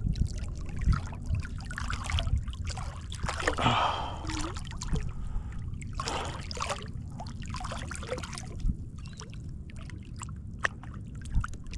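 Water splashing and trickling at the side of a kayak as a freshly caught snook is held in the water and released, with a few louder splashes.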